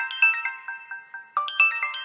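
Samsung GT-E2530 mobile phone ringtone playing: a quick chiming melody of short, decaying notes. The phrase loops about every 1.8 seconds, with a new repeat starting about one and a half seconds in.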